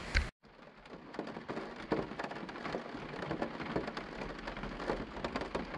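Steady rain pattering on a camper van's roof and roof skylight, heard from inside the van: a dense patter of drops with some louder taps.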